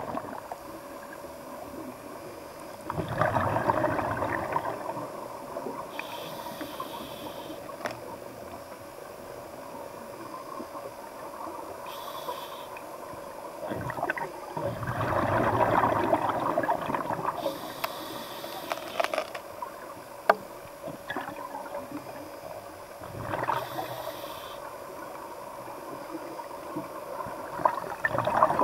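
Scuba diver breathing through a regulator, heard underwater: a hiss on each inhale and a rushing, gurgling burst of exhaled bubbles every several seconds, over a faint steady hum.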